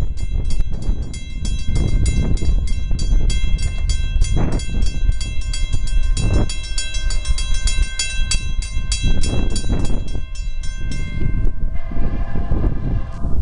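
Railroad crossing bell ringing in a fast, even rhythm as the crossing gates come down, over wind buffeting the microphone. The bell stops about eleven seconds in, once the gates are down, and a train horn sounds near the end.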